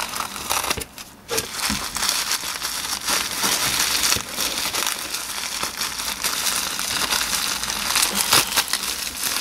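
Plastic bubble wrap crinkling and crackling as hands pull and unwrap it, with many small crackles throughout and a brief lull about a second in.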